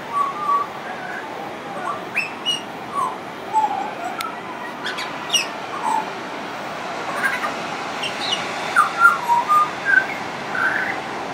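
Pied butcherbird singing: a long string of short notes of varying pitch, some gliding up or down, over a steady background hiss.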